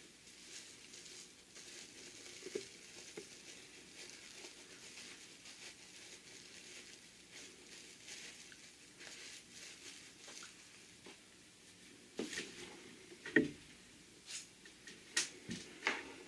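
Faint rustling and crinkling of a cotton strap lined with Insul-Bright heat-resistant batting as it is worked right side out by hand. A few sharper taps and rubs come in the last few seconds.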